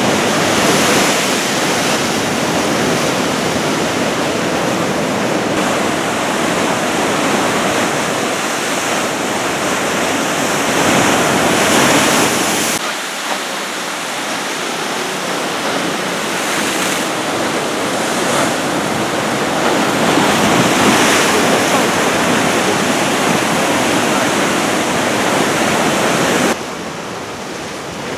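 Large storm waves breaking and surf rushing, with wind on the microphone; the loud rush of water swells and eases in surges and changes abruptly twice, about halfway through and near the end.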